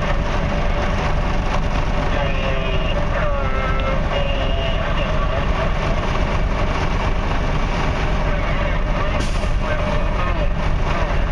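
Heavy diesel machinery running steadily, a container handler and trucks working, with a wavering whine over the engine rumble. A short hiss comes about nine seconds in.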